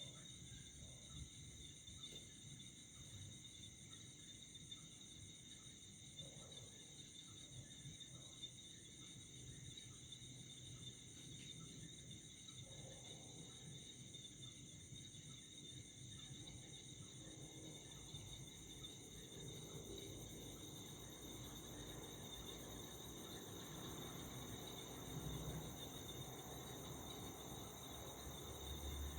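Crickets trilling steadily in a faint night-time chorus, with a low rumble building in the second half.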